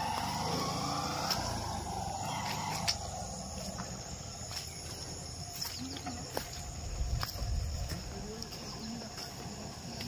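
Rural outdoor ambience: insects buzzing with steady high tones over a low rumble, with a few faint clicks.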